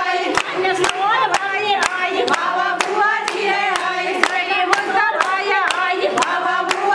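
Group of wedding guests singing a Kashmiri folk song together, with steady hand-clapping in time, about two claps a second.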